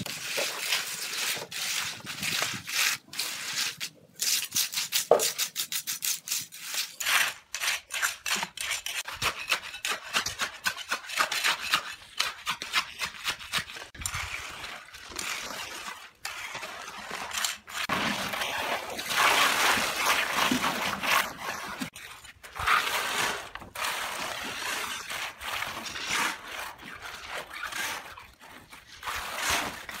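Steel hand trowels scraping through wet concrete and loose gravel in quick, irregular strokes, with small knocks among them.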